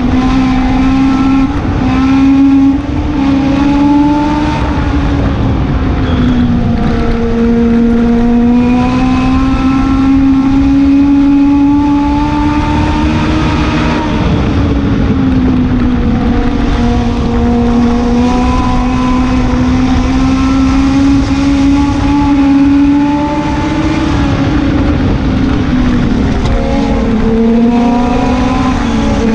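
Legend car engine running hard at high revs, heard from inside the cockpit; its pitch dips and climbs back up every several seconds through the laps.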